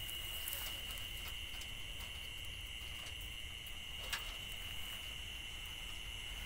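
Night insects chirring in one steady, unbroken high-pitched chorus. A single sharp click comes about four seconds in.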